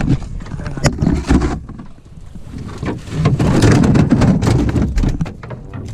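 Knocks and rubbing as things are handled on a small wooden boat, with about two seconds of loud, rough noise in the middle.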